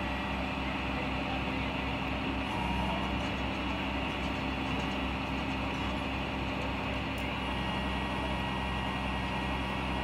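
Heavy truck engine running steadily in a low drone.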